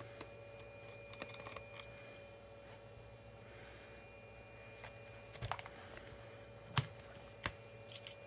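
Scattered light clicks and taps of a screwdriver and small screws on a laptop's plastic case as the screws are taken out. The sharpest click comes near the end, over a faint steady hum.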